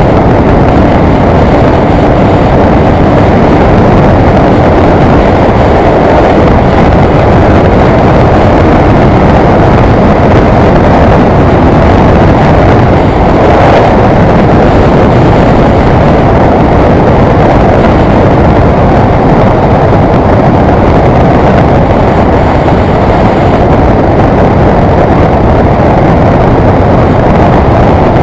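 Suzuki GT550J motorcycle, an air-cooled two-stroke triple, cruising at a steady road speed, picked up by a bike-mounted camera. Engine and wind blend into one loud, even rush.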